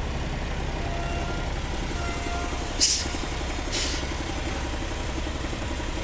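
A truck's diesel engine running at low revs as it pulls forward. Two short hisses of compressed air, typical of air brakes, come about three and four seconds in.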